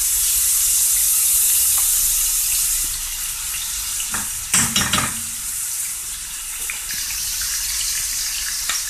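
Grated onion sizzling in hot oil in a frying pan while a metal spoon stirs it. The sizzle is strongest in the first few seconds, and a cluster of spoon scrapes against the pan comes about four to five seconds in.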